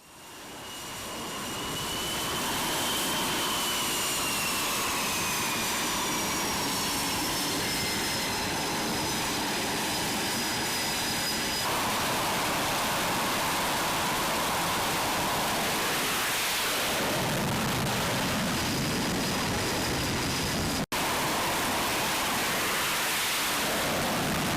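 Jet aircraft engines running: a steady, loud rush with high turbine whines that glide slowly downward. It fades in over the first two seconds, changes abruptly about twelve seconds in, and drops out for an instant about twenty-one seconds in.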